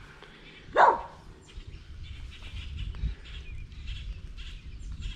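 A dog barks once, sharply, about a second in, followed by a low rumble.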